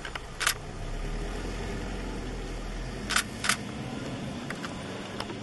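Low steady rumble of an idling vehicle engine, with three sharp clicks: one about half a second in and two close together about three seconds in.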